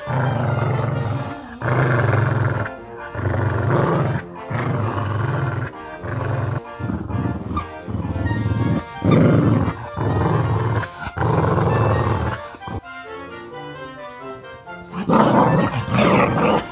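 Background music with a steady beat, over which a cocker spaniel growls in play while tugging and chewing a plush toy.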